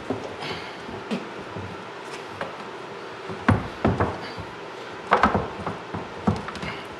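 Irregular knocks and bumps of a boiled bear skull being wrenched against a utility sink, a towel over the teeth for grip, as the lower jaw is worked loose; the loudest knocks come about three and a half and five seconds in.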